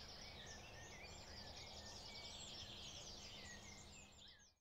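Faint tropical forest ambience: a dense chorus of many overlapping chirps and short whistled calls over a steady low hum, fading out near the end.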